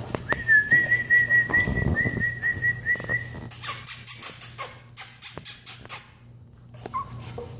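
A person whistling one fluttering note at a steady pitch, about three or four flutters a second, for roughly three seconds. A couple of seconds of hissing noise with a few light clicks follow.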